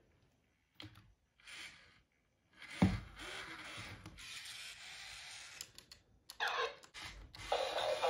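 White 2007 I-Dog robotic dog toy sounding off after power-on: a few short electronic noises and a sharp click as its head is touched, then near the end it starts playing its high-pitched electronic tune.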